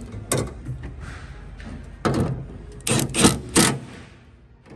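Cordless impact driver run in several short bursts, tightening the 8 mm bolts that hold a tailgate lock unit to the tailgate latch; a click just after the start.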